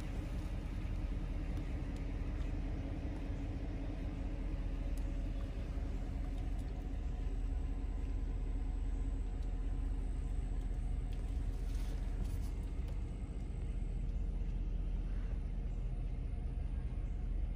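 2020 Chevrolet Silverado 1500 pickup's engine idling, heard from inside the cab as a steady low rumble.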